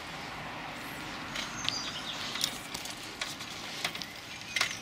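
Woodland outdoor ambience: a steady background hiss with a few faint bird chirps and scattered small clicks.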